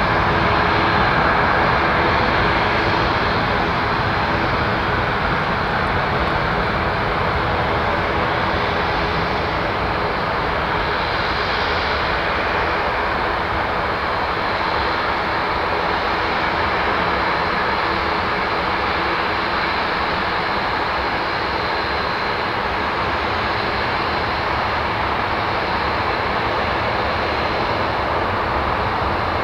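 A TUI Boeing 737-800's CFM56 turbofans running steadily at low power as the airliner taxis slowly: a continuous jet rumble with a thin, steady high whine.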